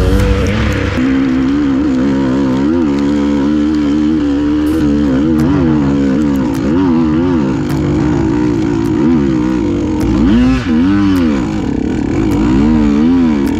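Dirt bike engine running under load, its pitch rising and falling again and again as the throttle is worked, with bigger swings in revs in the last few seconds.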